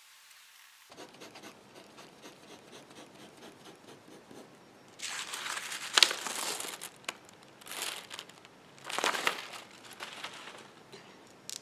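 Faint scratching of a pencil tracing over a photo onto carbon paper, then loud rustling and crinkling of paper sheets in several bursts as the photo and carbon paper are lifted off the drawing.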